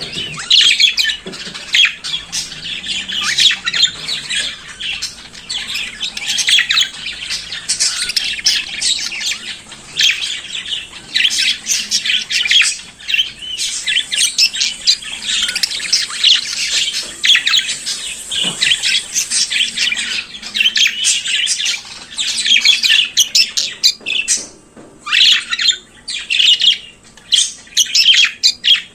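Budgerigars warbling and chattering, a continuous stream of chirps, squawks and short whistles.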